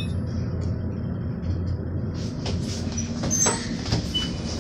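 Hotel elevator car running: a steady low hum and rumble, with a few faint clicks and knocks.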